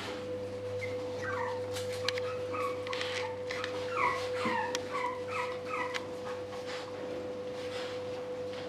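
French bulldog puppies whimpering: short, high squeaks that slide down in pitch, one after another, a couple a second, over a steady hum.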